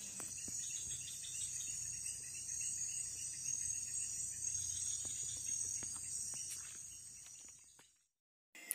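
Steady, high-pitched chorus of insects, fading out near the end.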